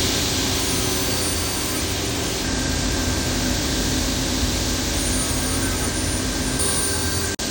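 A woodworking power tool or dust extractor running steadily: a loud, even rushing hiss over a low hum. It cuts out for an instant near the end.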